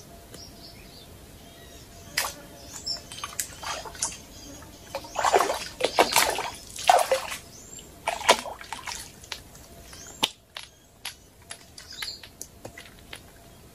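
A hooked fish thrashing and splashing at the surface of shallow water as it is played on a fishing line, with scattered splashes and a loud flurry of splashing about five to seven seconds in. Birds chirp faintly.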